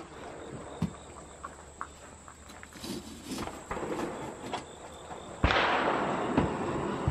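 Iron bar being laid into a coal forge fire, with light scattered clinks of metal on coal. About five seconds in, a sudden steady rush of air starts as the forge's blast comes on and the fire flares.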